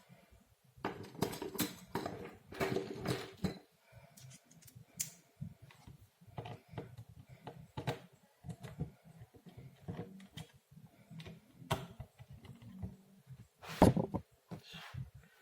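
Irregular clicks, taps and rustling of hands handling a Dell laptop's parts during a RAM swap, busiest in the first few seconds, with one louder knock near the end.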